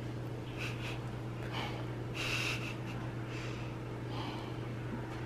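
A person breathing audibly through the nose in several short, soft puffs, the strongest about two seconds in, over a steady low hum.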